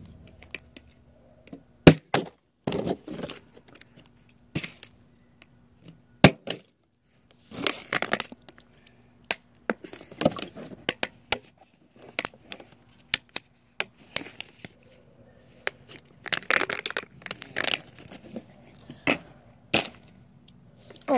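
Plastic water bottle being gripped, crinkled and flipped: several sharp clacks as it is tossed and lands, between short crinkling bursts of the plastic.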